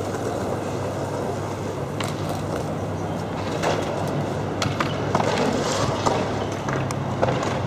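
Skateboard wheels rolling on hard ground, with several sharp clacks of boards spread through.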